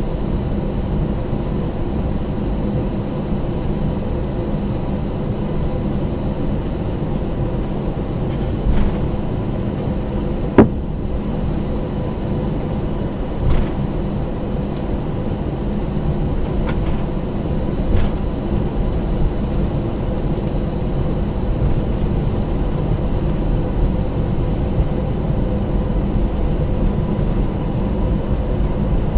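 Airbus A321-231 taxiing, heard inside the cabin: its IAE V2500 engines running at low thrust with a steady hum and whine. A few brief knocks come through, the sharpest about ten and a half seconds in.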